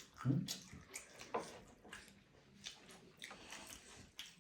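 Close-up eating sounds: a person chewing momos, with wet mouth clicks, and a brief low hum of a voice near the start.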